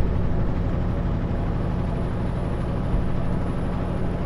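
Kenworth W900L semi truck driving at a steady speed: its engine drone and road noise, heard from inside the cab.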